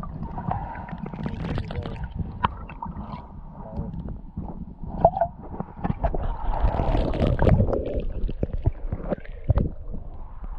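Muffled underwater gurgling and sloshing heard through a submerged camera, with scattered knocks. The water noise grows louder and denser from about six seconds in.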